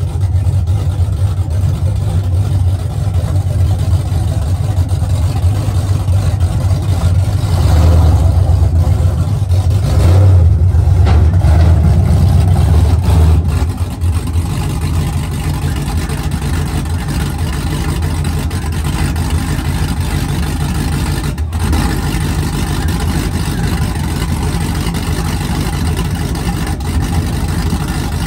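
Square-body Chevrolet pickup's engine running as the truck pulls up onto a wooden flatbed trailer. It grows louder under throttle for several seconds around the middle, then drops back to a steady idle.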